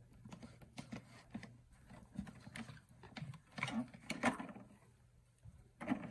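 Faint clicks, taps and crinkling of hard plastic being handled: a clear plastic bubble-window dome and its black plastic ring, with protective plastic wrap rustling. A cluster of louder plastic knocks about four seconds in and another near the end, as the ring is worked loose from the dome.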